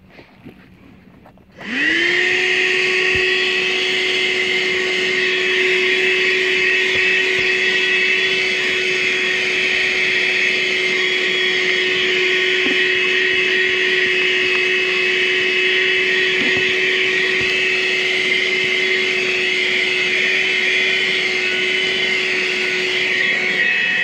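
Armor All 12-volt wet/dry car vacuum switched on about a second and a half in. Its motor spins up with a quick rising whine, then runs steadily with a whine over a rush of air.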